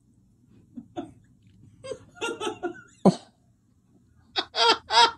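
A man laughing in scattered short bursts, then a quick run of laughs near the end.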